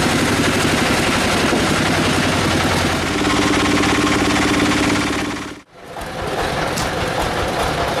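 Band sawmill machinery running loudly, a steady engine hum under a fast rattle. The noise fades out for a moment about two-thirds through, then comes back.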